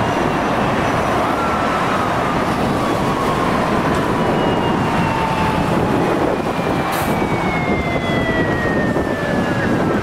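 Steady expressway traffic noise of passing vehicles, with a faint high tone that slowly falls in pitch over several seconds.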